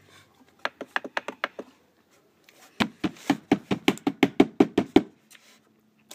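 Two quick runs of sharp taps or knocks, about seven a second. A short run comes about half a second in, then a longer, heavier run from about three seconds in to about five seconds.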